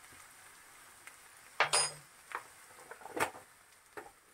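Coconut oil sizzling faintly in a stainless frying pan, broken by about four sharp metallic clinks of a metal spoon against the pan, the loudest nearly two seconds in with a short ring.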